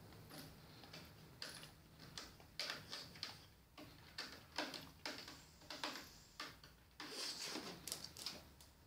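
Faint, irregular scratching and clicking of kittens' claws on a sisal scratching board and carpeted cat tree as they play, with denser bursts of scratching about a third of the way in and again near the end.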